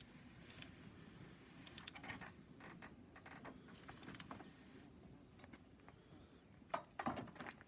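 Faint clicks and knocks of an RV awning's metal arms and braces being handled and adjusted, with a couple of sharper knocks near the end.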